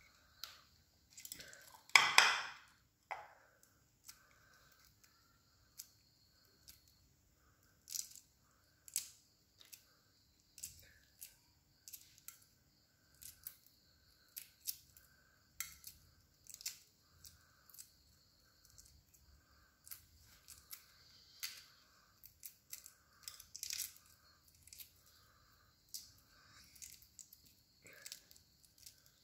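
Hard-boiled eggshells being cracked and peeled by hand: scattered small crackles and clicks of shell breaking and tearing away from the egg. A loud knock comes about two seconds in.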